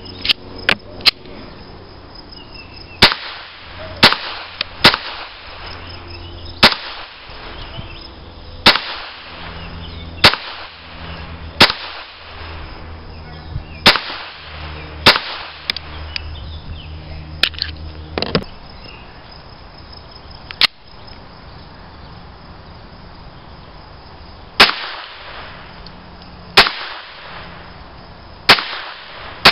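Walther P22 .22 LR pistol, unsuppressed, fired in a string of about eighteen sharp shots. The shots come mostly one to two seconds apart, with a pause of about four seconds in the latter part. A steady low hum runs under the first two-thirds.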